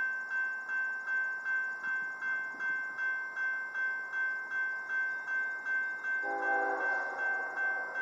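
Electronic railroad crossing bell dinging steadily at a little over two strikes a second. About six seconds in, the approaching BNSF ES44DC locomotive sounds a short chord on its air horn, under two seconds long.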